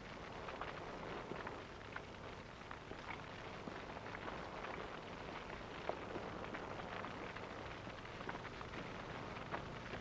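A steady hiss with many faint scattered crackles, without speech or music.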